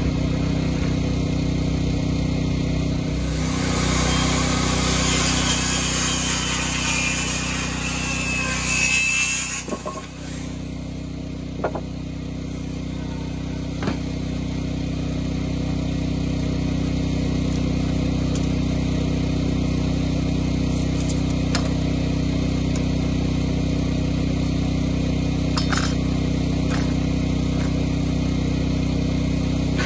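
Small portable gasoline generator engine running steadily. A louder spell of wider noise comes about three to nine seconds in, and a few sharp clicks come later.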